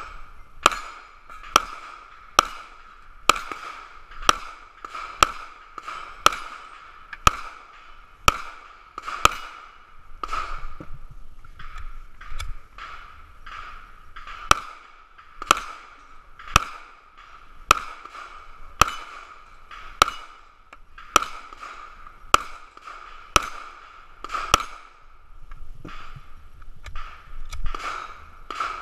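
A steady string of pistol shots, about one a second, each followed by the metallic ring of a steel plate target being hit.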